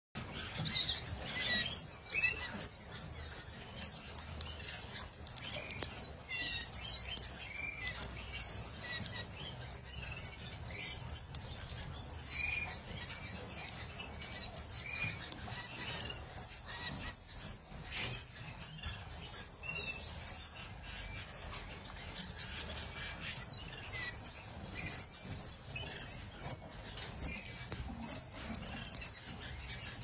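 Canaries calling: short, high-pitched chirps, each falling quickly in pitch, repeated one to two times a second, sometimes in quick pairs.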